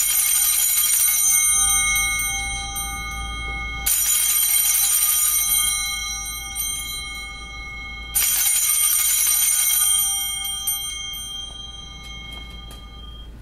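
Altar bells (a cluster of small sanctus bells) rung three times for the elevation of the consecrated chalice: at the start, about four seconds in and about eight seconds in. Each ring is a bright jangle of several high tones that is left to fade.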